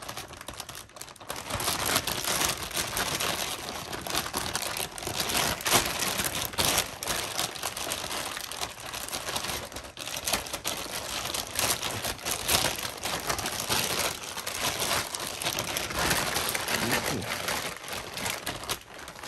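Clear plastic wrapping bag crinkling and rustling continuously as it is pulled open and worked off by hand, picking up after a quieter first second or so.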